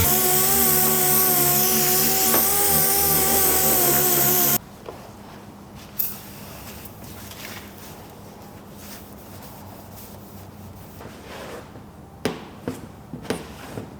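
A power tool running with a steady whine and hiss, cut off abruptly about four and a half seconds in, followed by quieter scattered clicks and knocks.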